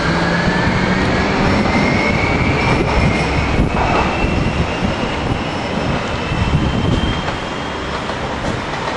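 RET sneltram metro train pulling away from the platform: its traction motor whine rises steadily in pitch as it gathers speed, over the rumble of wheels on the rails.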